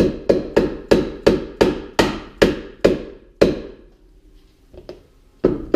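A mallet striking a new hinge bushing into the top door hinge of a 1995 GMC Sierra to seat it: about ten quick, sharp blows at roughly three a second, slowing over the first few seconds, then a pause, a light tap and one more blow near the end.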